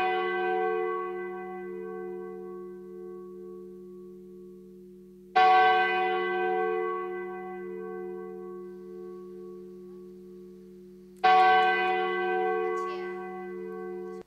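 A large bell struck at even intervals about six seconds apart, each stroke ringing out and slowly dying away; strokes fall about five and eleven seconds in, and the last is cut off abruptly near the end.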